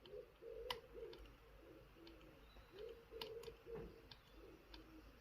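Faint, scattered metallic clicks of a pick and tension tool working the levers inside a Chubb 3U114E five-lever lock as each lever is checked.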